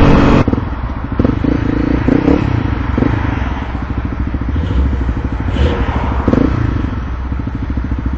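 Motorcycle engine dropping from riding speed to a steady idle about half a second in, its firing pulses running evenly.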